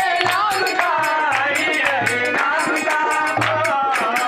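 Live Indian folk devotional song: a man singing over a harmonium, with a dholak drum and small hand cymbals keeping a brisk beat.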